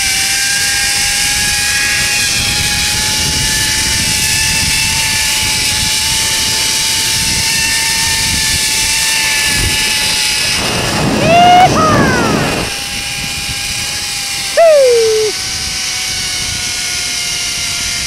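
Zip line trolley's pulley wheels running along the steel cable with a steady high whine over a rush of wind. The pitch sinks slightly in the last few seconds. A rider whoops twice, about eleven and fifteen seconds in.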